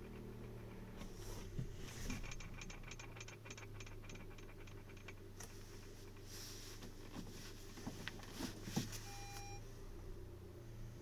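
Renault Duster running steadily with a rapid, even ticking knock for a few seconds, about five a second, then several sharper single knocks; this is the unexplained knock the owner is asking about. A short electronic beep sounds about nine seconds in.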